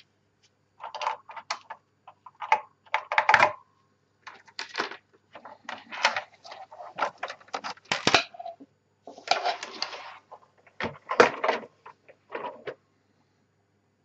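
A vintage terminal keyboard being handled by gloved hands: irregular clicks, knocks and rubbing as it is lifted, turned over and set down on a cutting mat. The handling stops near the end.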